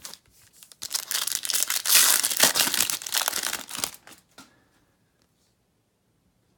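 Plastic trading-card pack wrapper crinkling and crackling loudly for about three seconds as it is handled and torn open.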